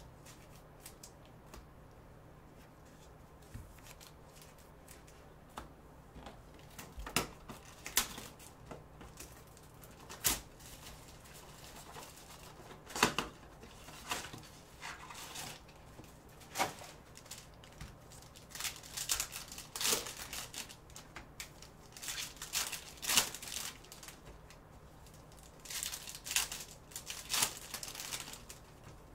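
Clear plastic wrap and foil trading-card packs being torn open and crumpled by gloved hands, in scattered short crackling bursts with quiet gaps between.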